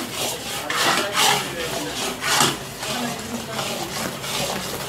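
Metal ladle scraping round a steel kadai as it stirs thick Mysore pak batter, in irregular rasping strokes about one a second.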